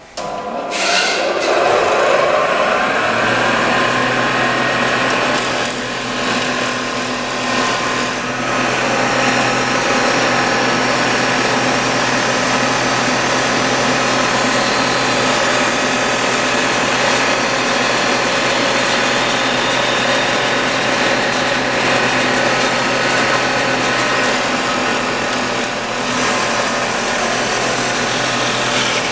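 Caselli shovel-handle and rod shaping machine started up, its motor's whine rising over the first few seconds, then running steadily with a hum while its cutter mills a wooden handle, giving a continuous loud rasp of wood being cut.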